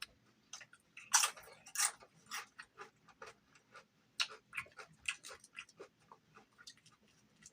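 Close-miked chewing of crispy food: a run of irregular, crackly clicks and crunches, several a second.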